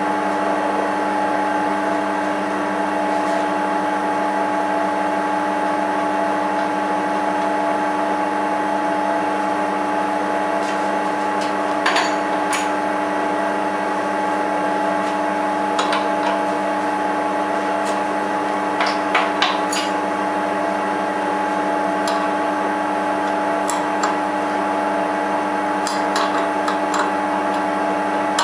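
Homemade lathe running: an electric motor drives the spindle's stepped pulley by belt, giving a steady hum with a couple of fixed tones. A few short clicks come through in the second half.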